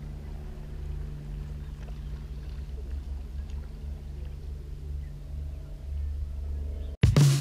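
Steady low mechanical hum of an unseen motor, even and unchanging. Right at the end it cuts off abruptly and guitar music begins.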